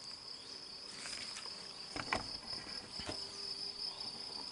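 Steady high-pitched insect chirring in the background, with a couple of faint clicks about two and three seconds in.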